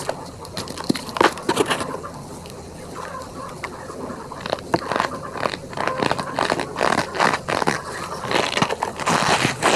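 Gym chalk packed with cornstarch and holi powder being crushed: irregular crunching and crackling with the squeaky, creaking sound of compressed cornstarch. The crunches come thicker and louder in the last few seconds.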